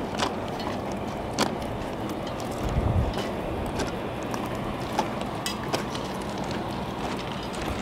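Footsteps crunching irregularly on railway track ballast over a steady low rumbling noise.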